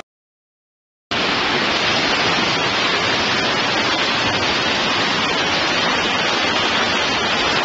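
About a second of silence, then an abrupt, loud, steady rush of floodwater pouring through a flooded subway station.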